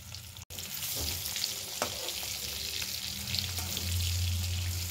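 Hot oil sizzling and crackling around whole boiled, spiced potatoes shallow-frying in a kadhai, with a slotted spatula turning them and a sharp click about two seconds in. A low hum grows stronger in the second half.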